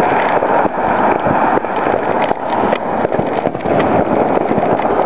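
Fireworks popping and crackling irregularly over a steady rushing background noise.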